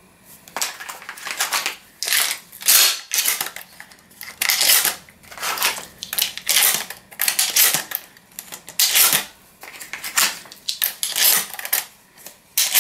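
Dummy shotgun shells being loaded quickly into a Remington 11-87 semi-automatic shotgun: a dozen or so sharp metallic clacks and rattles, about one a second, as shells are pushed into the magazine tube and the action works.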